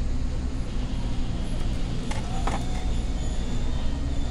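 Steady low background rumble with two faint short clicks a little after two seconds in; no blaster firing.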